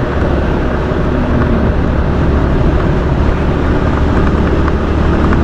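Motorcycle riding at steady speed: a steady engine hum with wind rush and road noise, picked up by a helmet-mounted action camera microphone.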